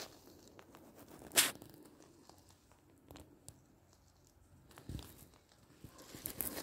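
Rustling and crackling handling noise from a handheld phone being carried while filming, with scattered small clicks. A short, sharp rustle about a second and a half in is the loudest sound, and there is a dull thump near five seconds.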